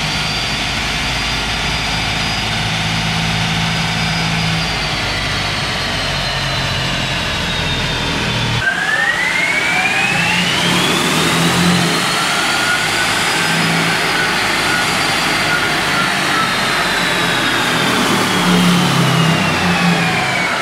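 Ford F-150 Lightning's dual electric motors and the spinning dyno rollers whining as the truck runs at around 50 mph on a four-wheel chassis dyno. The whine falls slowly at first; about eight seconds in, heard from inside the cab, it drops lower and then climbs steeply in pitch as the truck speeds up, holds, and eases down again near the end.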